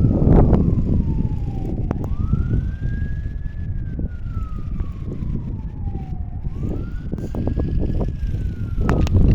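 A distant emergency-vehicle siren wailing. It rises quickly, then falls slowly, about once every four seconds. Under it runs a loud low rumbling noise, with scattered crunching steps in snow.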